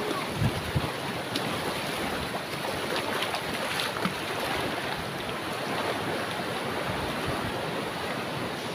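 Strong surf breaking and washing over a rocky reef flat in a steady rush, with wind buffeting the microphone.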